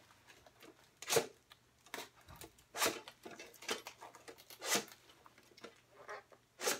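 Blade cutting open a cardboard film package, in about half a dozen short, sharp strokes spaced roughly a second apart.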